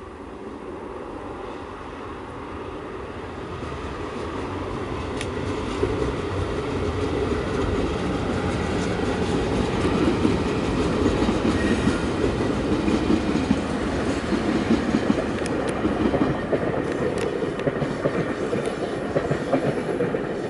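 Double-deck passenger train crossing a concrete bridge: a rumble with wheel clatter that grows louder over the first several seconds, then holds steady, with a few sharp clicks.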